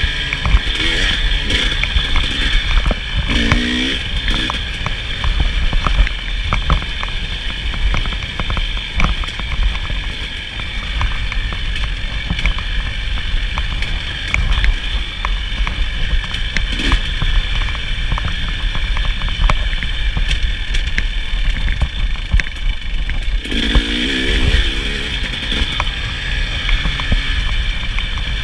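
KTM 300 XC-W two-stroke dirt bike engine running under way, revving up about three seconds in and again near the end, with frequent knocks and clatter from the bike over rough ground and a heavy low rumble throughout.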